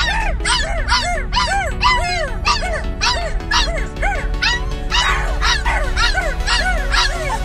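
Husky puppy howling in a rapid run of short rising-and-falling yips, about two or three a second, over background music.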